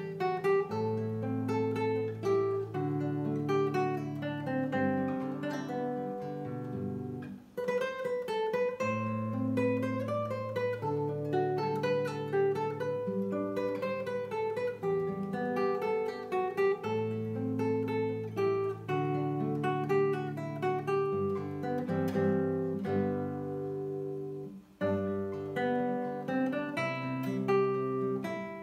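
Solo nylon-string classical guitar played fingerstyle: a melody of plucked notes over a moving bass line, with two short breaks in the sound, about a third of the way in and near the end.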